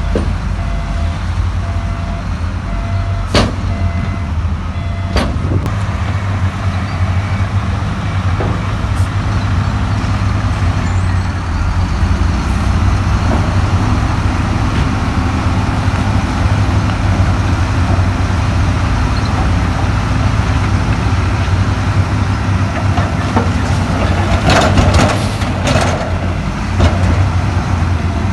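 Heavy diesel earthmoving machinery running steadily, with two sharp knocks a few seconds in and a louder clattering burst about 25 seconds in.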